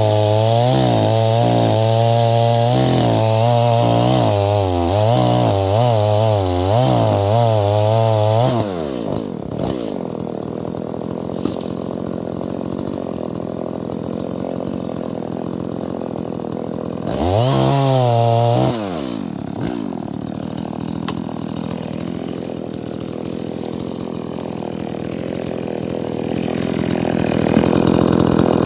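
Petrol chainsaw running at high revs, its engine note wavering, then dropping to idle about eight seconds in. It is revved once briefly in the middle, and revs up again near the end.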